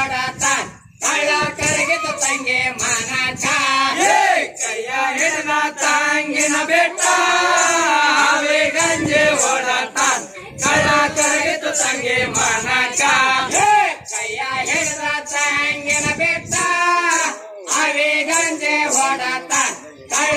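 A group of voices singing a Rivayat pada, a North Karnataka Muharram folk song, in chorus, with a rhythmic high jingle keeping time at about two beats a second.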